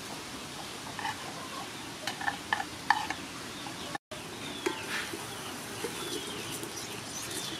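Metal spoon scraping and tapping curry paste off a wooden board into a pot, a few sharp knocks in the first three seconds, over the steady rush of water at a rolling boil. After a cut about four seconds in, birds chirp over the boiling.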